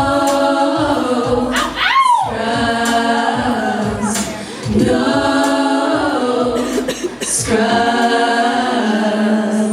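Group of women singing a cappella in held chords, with one voice sliding up and back down about two seconds in.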